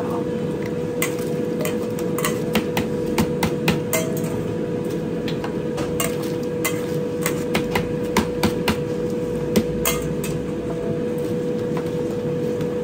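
Steel scoop and mesh strainer clanking irregularly against the rim of a large stainless steel noodle pot while noodles are stirred and lifted from the boiling water, over a steady background rush with a constant hum.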